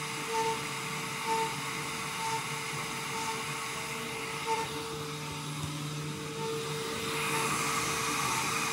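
CNC router spindle running and cutting into wood, a steady whirring noise that grows louder and brighter about seven seconds in.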